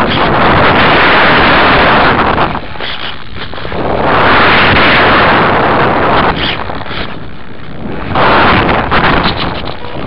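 Airflow rushing over the microphone of the onboard FlyCamOne2 camera of a foam RC model plane gliding down without motor power in an emergency landing, rising and falling in loud surges with no motor whine.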